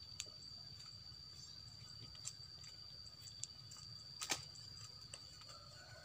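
A steady, high-pitched insect trill, with scattered faint clicks and one sharper click a little past the middle.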